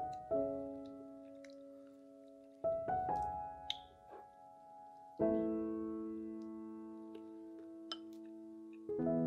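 Background music of slow piano chords, each struck and left to ring and fade, a new chord about every two and a half seconds.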